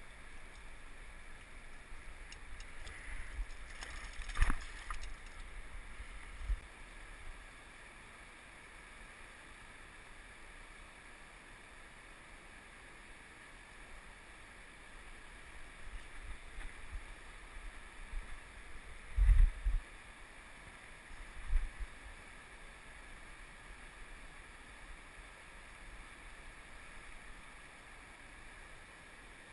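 Steady rushing of a wide, fast river, with a few dull thumps. The loudest is a sharp knock about four seconds in, and there is a pair of bumps about two-thirds of the way through.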